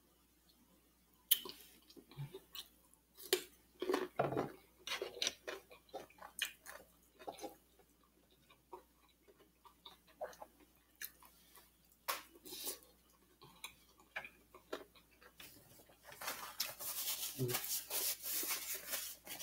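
Close-miked eating sounds: chewing on cucumber slices dipped in sauce, with scattered short clicks and taps of a fork on the plate and tray. Over the last few seconds comes a denser rustle, a paper napkin being handled.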